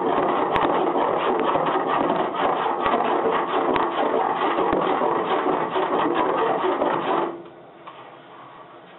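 A file rasping steadily across lead body solder on a car body panel, dressing the filler down flat. It stops abruptly about seven seconds in.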